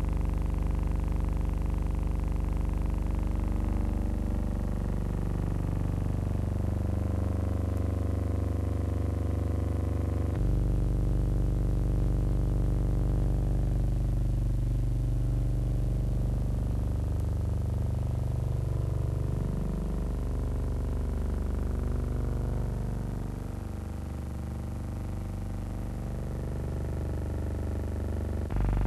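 Piston engine of an early German helicopter running, a steady drone made of several pitches that waver and drift. It changes abruptly about a third of the way in and again near the end.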